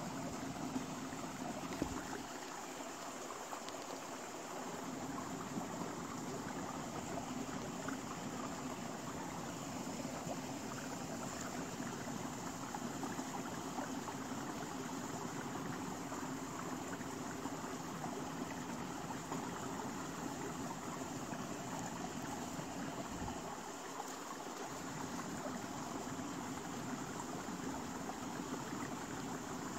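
Steady rushing background noise with a faint low hum. The deepest rumble drops away briefly twice, a couple of seconds in and again near the end.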